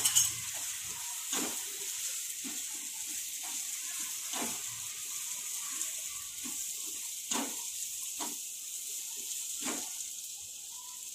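Boiled black chickpeas and spice masala sizzling gently in a nonstick kadai while being stirred with a silicone spatula, with a steady faint hiss and a handful of soft scrapes of the spatula against the pan.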